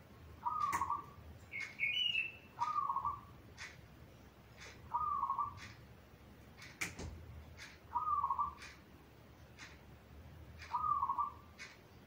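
Zebra dove (perkutut) cooing: a short rolling phrase repeated five times, about every two to three seconds, with faint sharp ticks between the phrases and a brief higher chirp about two seconds in.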